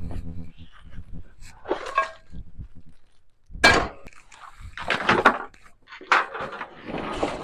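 Pots, pans and utensils clattering and knocking as camp cooking gear is handled, in four or five separate bursts.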